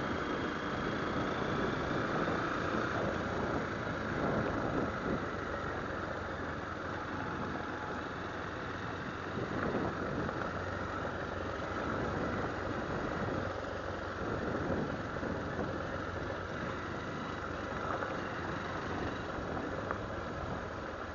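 Motorcycle engine running steadily while riding along a dirt track, heard from the bike itself, with a steady rushing noise over it.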